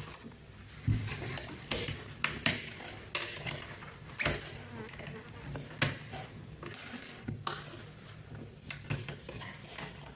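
Mechanical keyboard keycaps being handled: irregular sharp plastic clicks and clatter, about ten in all, over a steady low hum.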